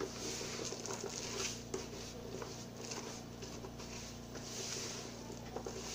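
A hand rubbing and crumbling tapioca starch moistened with water in a plastic bowl: irregular soft rustling and patting with small ticks and a few louder swells of scraping.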